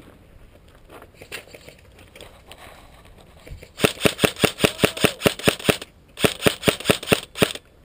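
Airsoft electric gun firing two rapid strings of shots, about seven a second, starting about four seconds in, with a short break between them.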